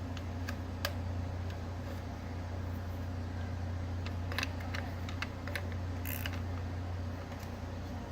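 Scattered small clicks and light knocks of the mixer grinder's parts being handled and turned, over a steady low hum.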